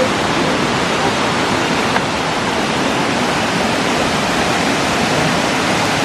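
Waterfall: water spilling in many thin streams down a mossy rock face and splashing into the pool below, a steady rush of falling water.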